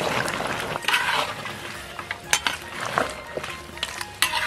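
Metal spatula scraping and clinking in a large wok as chicken, potatoes, peppers and onions are stir-fried, over the sizzle of the frying food. Several sharp clinks of the spatula against the pan stand out.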